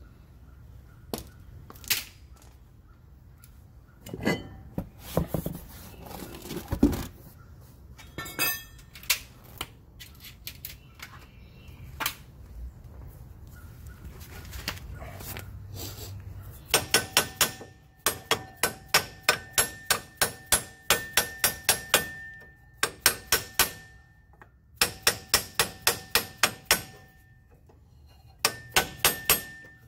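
Scattered tool knocks and clanks at first. Then, from past the middle, runs of rapid metal-on-metal blows, about four a second, with a ringing metallic tone: a hammer striking the cast rear brake drum of a Cushman to work it loose.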